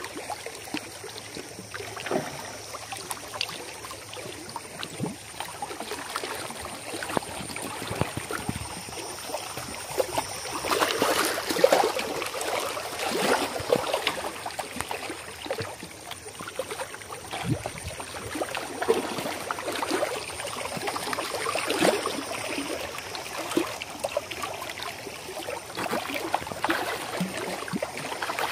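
Small waves lapping at the shore, then from about ten seconds in a hooked fish thrashing and splashing at the surface, with repeated splashes as it is drawn in close to the bank.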